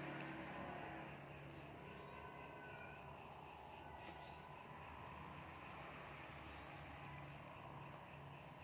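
Faint chirping of crickets, an even repeating pulse, over a low steady background hum.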